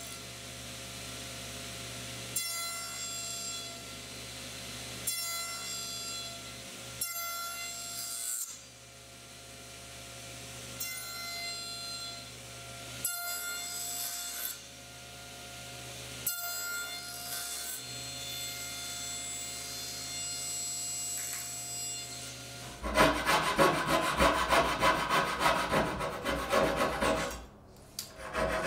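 Bandsaw running steadily while short cuts are made into the end of a board for dovetails. About 23 seconds in, a hand coping saw takes over, rasping back and forth in rapid, louder strokes through wood as it cuts out the waste between the dovetail tails, with a brief pause near the end.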